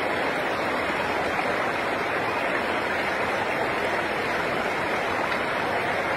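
Shallow river rushing over rocks and around people sitting in the current: a steady, even rush of water.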